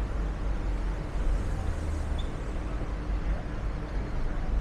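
Busy city street traffic noise: a steady low engine rumble from passing buses and cars, heaviest about a second in.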